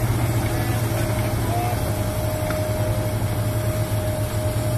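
Heavy diesel engines running steadily under load: a Komatsu PC200 excavator crawling on its tracks and pushing a stuck truck through deep mud. There is a low drone with a steady high whine over it.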